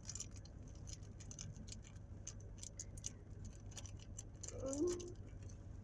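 Faint, scattered small clicks and crinkles of small plastic packaging being opened by hand, with a brief hummed voice sound near the end.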